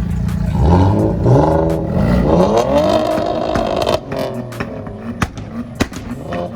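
Car engine revved hard several times in quick succession, each rev climbing, then held high. It drops off suddenly about four seconds in to a lower idle with sharp exhaust pops.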